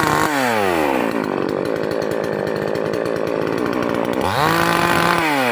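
Chainsaw engine being revved and let back to idle: a held high rev drops away in the first half second, the engine runs low and rough for about three seconds, then it revs up sharply again about four seconds in, holds briefly, and falls back near the end.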